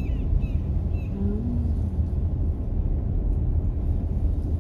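Steady low rumble of a car driving, heard from inside its cabin: engine and road noise.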